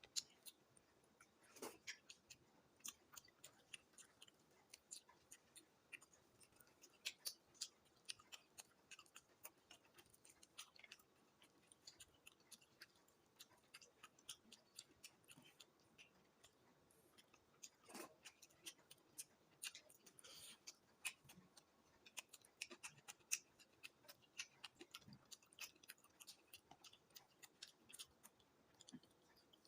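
Close-miked eating sounds: chewing with many small, irregular mouth clicks and smacks, and a few louder ones.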